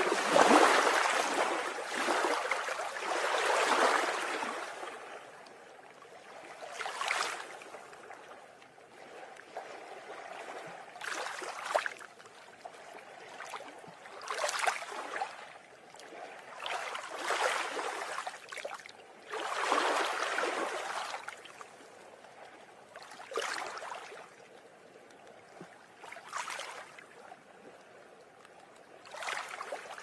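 Sea waves breaking and washing against a seawall, each one a noisy rush of surf and foam. The first surge is the loudest, and after it a new wave surges in every few seconds.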